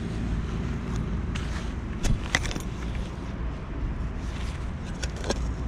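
Wooden-handled hand digger stabbing and scraping into soil in a freshly cut hole, with a few sharp clicks, over a steady low rumble.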